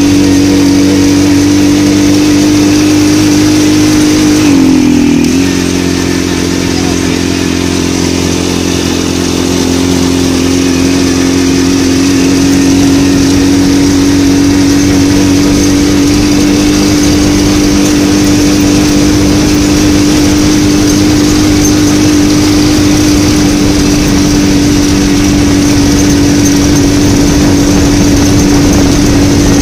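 Engine of a small motor vehicle ridden across beach sand, heard from on board, running with a steady drone. About five seconds in the engine note dips briefly and the sound drops a little, then the pitch climbs slowly back.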